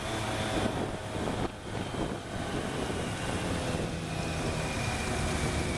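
Motorcycle engines running at road speed in a group ride, with steady wind noise on the microphone.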